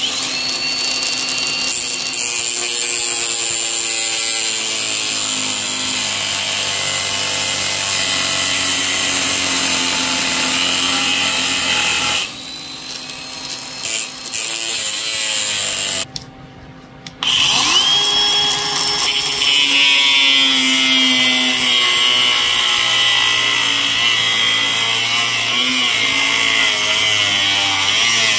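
Ryobi cordless angle grinder spinning up and grinding off welds on steel tubing, the disc cutting into the steel. About twelve seconds in it drops off and blips briefly, then it stops, spins up again with a rising whine and grinds on to the end.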